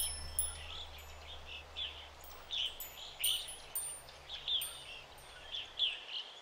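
Birds chirping in short, falling calls, one or two a second, while a wind chime of small hanging bells rings now and then with high, clear strikes.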